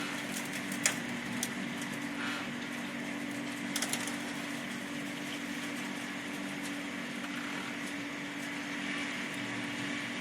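Hail and hard rain coming down: a steady hiss of rain with sharp ticks and cracks of hailstones striking hard surfaces, the loudest hit about a second in and a few more around four seconds.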